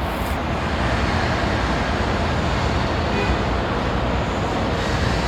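Steady machinery rumble with a broad hiss, even in level throughout.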